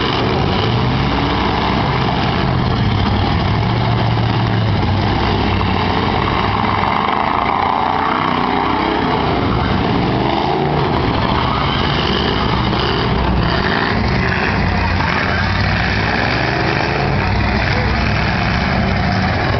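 Eight-cylinder demolition derby cars' engines running and revving together in a loud, steady din, the pitch rising and falling now and then.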